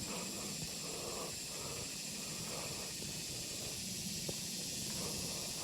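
Footsteps along a woodland trail at a steady walking pace, about two a second, over a constant high-pitched drone of insects.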